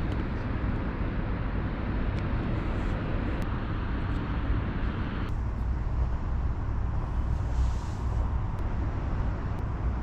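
Steady outdoor background noise with a low rumble and no distinct events. The hiss in the upper range drops away about five seconds in.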